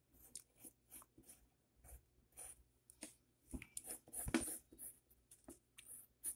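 Wooden pencil scratching on paper in a run of short, irregular sketching strokes, faint, the loudest a little past the middle.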